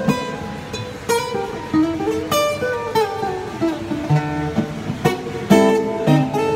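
Acoustic guitar playing an instrumental break: strummed chords under a picked melody line that steps downward about halfway through.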